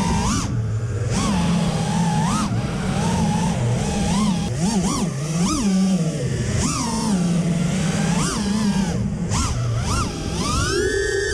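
5-inch FPV freestyle quadcopter's brushless motors (2207 2450kv) and props whining in flight, the pitch rising sharply and falling back about once a second with repeated throttle punches.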